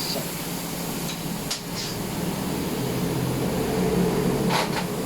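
A steady mechanical hum, with a sharp click or knock about a second and a half in and another near the end.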